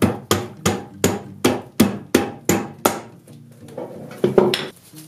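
Mallet striking a link of roller drive chain clamped in locking pliers, about three sharp blows a second for ten or so strokes. After a short pause come two or three more quick blows near the end.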